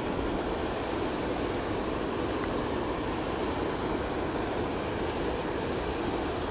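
Water rushing over a creek spillway: a steady, even rush.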